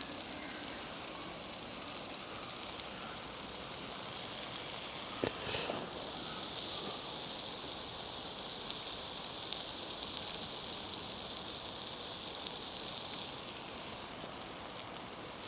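Sausages sizzling in a Trangia frying pan: a faint, steady hiss with fine crackling, and a sharp click about five seconds in.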